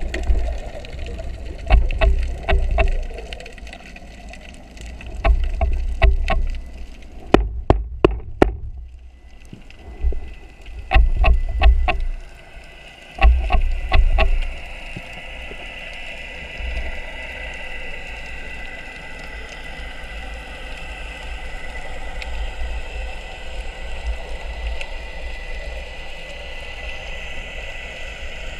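Underwater sound picked up by a camera on a speargun: several bursts of rumbling and clicking through the first half, then a steady hiss with a faint steady whine.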